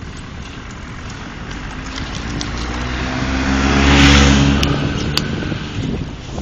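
A car driving past: engine and tyre noise swell over a couple of seconds, are loudest about four seconds in, then fade away. Two short clicks come soon after the peak.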